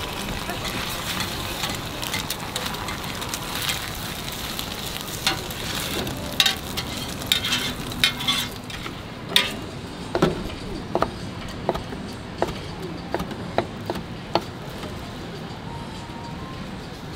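Egg frying on an oiled flat-top griddle, a steady sizzle with scattered scraping clicks. After about ten seconds the sizzle drops away and about seven sharp knocks follow, evenly spaced, on a wooden cutting board.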